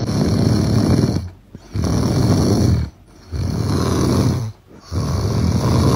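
French bulldog puppy snoring in its sleep: four long snores, each about a second, with short breaks between.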